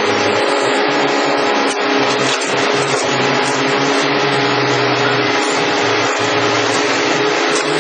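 Heavy machinery engine and hydraulics running steadily, the working sound of a hydraulic pile breaker rig. It is a loud, even drone with steady humming tones.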